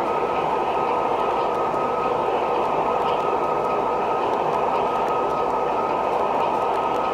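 Empty O gauge model coal hopper cars rolling along the track: a steady rumble with a constant high tone running through it.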